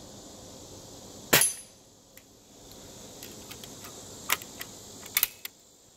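An air rifle firing a pellet once, a sharp crack about a second and a half in, followed by a few lighter clicks. Crickets chirr steadily in the background.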